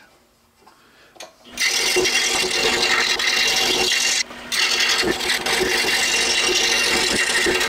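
Scroll saw with a new number 7 reverse-tooth blade cutting the key and keyhole joints into wooden track pieces. It starts about a second and a half in and runs steadily, cutting out for a moment near the middle.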